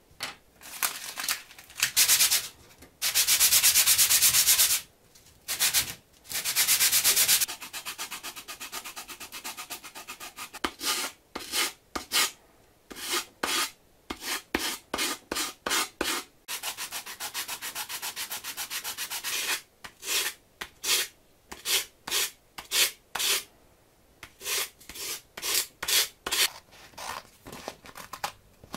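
Hand sanding a small wooden part with a sanding block: rubbing strokes, some in long unbroken runs of a second or two, most as short separate strokes.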